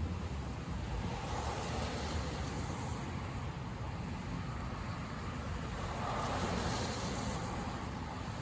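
Car driving on a wet road in the rain: a steady low rumble of engine and road with the hiss of tyres and rain, swelling a little about six seconds in.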